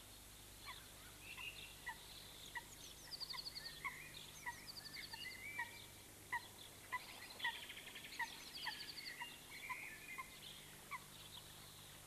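Faint birdsong: several small birds chirping, with short single chirps repeated every half second or so and a few quick high trills.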